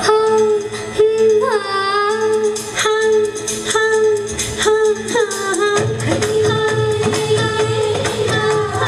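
Dance music with a woman singing long held notes that slide in pitch. A deeper bass beat comes in about six seconds in.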